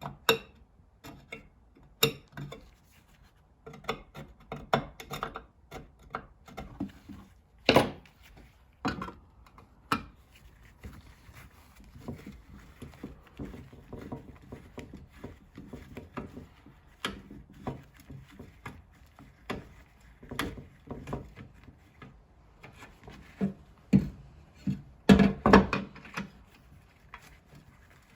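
Small hand tools working at the screws of an old spirit level, cleaning out the screw heads: irregular light clicks and scrapes, with a cluster of louder knocks near the end.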